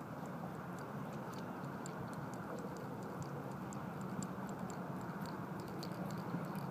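Light, irregular clicking of a fishing reel as line is wound in, over a steady low background rumble.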